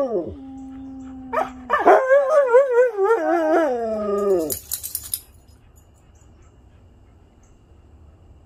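Huskies howling: a short falling call, a held steady note, then a long wavering howl that slides down in pitch and stops about four and a half seconds in. A brief hiss follows, then only faint background.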